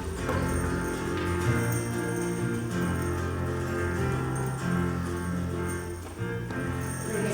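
Instrumental introduction to a children's choir song: held chords over a bass line, with a light jingle of bells.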